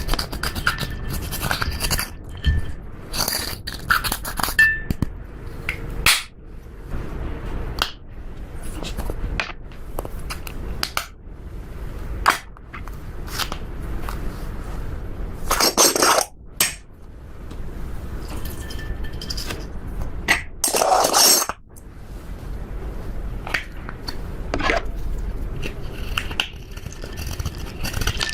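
Slime and eyeshadow being handled: sharp clicks, taps and scrapes, with two longer crackly scrapes, one around the middle and one a few seconds later.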